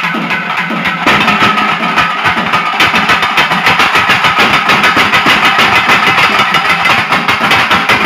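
A group of folk drums played together in a fast, continuous rhythm: shoulder-slung barrel drums and a pair of small drums, all beaten with sticks. It gets louder about a second in, and a steady high note runs underneath.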